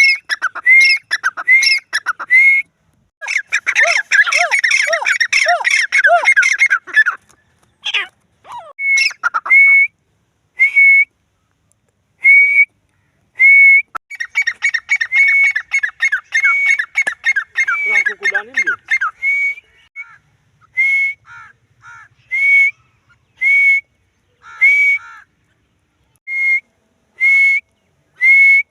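Francolin (teetar) calling: short, ringing notes repeated in series with pauses between, and two stretches of fast, dense chattering calls, one a few seconds in and one around the middle.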